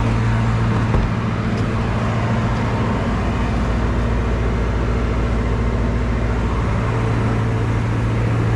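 Steady low machine drone with a strong hum. A knock comes about a second in, after which the deepest rumble thins, and it fills back in about two-thirds of the way through.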